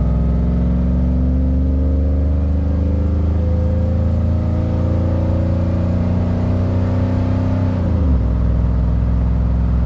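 2000 Chevrolet Silverado's 4.8-litre Vortec V8 running through headers with the mufflers deleted, pulling under light throttle. The exhaust note climbs slowly in pitch for about eight seconds, then drops sharply at an upshift and carries on steady.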